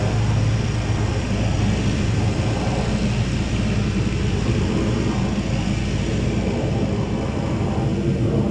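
Vehicle engine running steadily, with a continuous even drone of engine and road noise while the vehicle is manoeuvring to back in.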